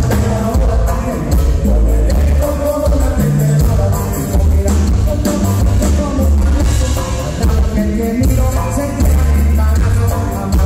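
Live band playing through the PA: button accordion over congas, bass guitar, electric guitar and drums, with a heavy bass line.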